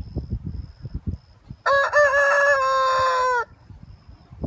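Chicken crowing once, a single pitched call of nearly two seconds about midway, held level and dropping off at the end. Low, irregular thumping noise comes before and after it.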